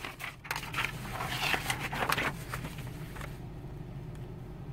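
Sheets of printed paper rustling and crinkling as pages are handled and flipped, for the first two seconds or so, over the steady low hum of a car engine idling, heard from inside the car.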